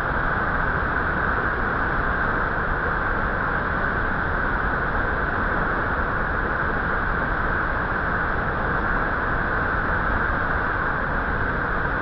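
Large waterfall's whitewater rushing, a steady unbroken noise without change.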